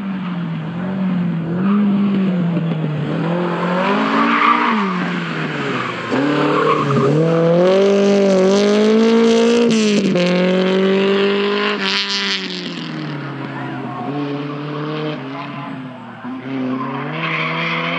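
A historic rally car's engine revving hard as it accelerates past, its pitch climbing and falling with each gear change. It is loudest in the middle of the pass, drops suddenly as the driver lifts off, then carries on at lower revs as the car drives away.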